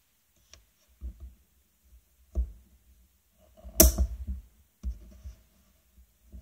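Handling noise of a plastic USB digital microscope and its cable: a few scattered knocks and clicks, the sharpest one a little under four seconds in.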